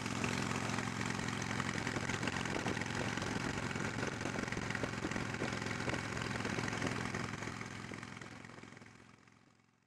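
Harley-Davidson Sportster 883 air-cooled V-twin running steadily at highway cruising speed, with wind rush on the helmet-camera microphone. It fades out over the last two seconds.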